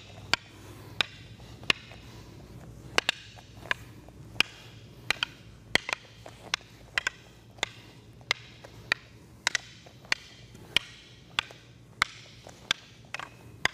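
Rattan sticks and training knives clacking against each other in an even rhythm of one or two sharp strikes a second, as two partners run a stick-and-knife sumbrada flow drill. A few strikes ring briefly.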